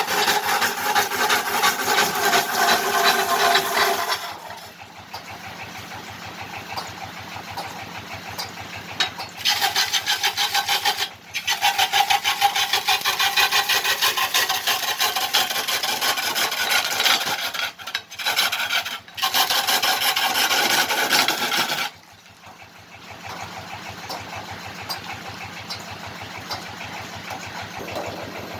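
Wood lathe turning a kendang drum body of fruit-tree wood: a cutting tool scrapes the spinning wood in long, loud passages, lifted off briefly a few times. Between the cuts the lathe's motor runs on its own, quieter.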